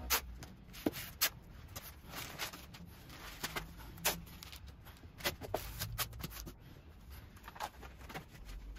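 Newspaper rustling and crinkling as sheets are handled and pressed down, with masking tape being pulled off the roll, in a string of short sharp crackles.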